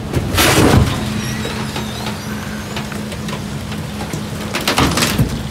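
Rear-loader garbage truck running with a steady hum from its engine and hydraulics as rubbish sits in the hopper, with two loud rushes of noise, one about half a second in and one near the end, from the loading and compacting mechanism.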